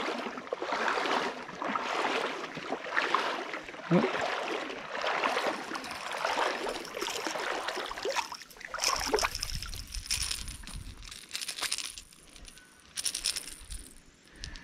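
Irregular water splashing and sloshing as a small hooked sooty grunter is brought in and landed. It thins out over the second half, with a few short sharp noises near the end.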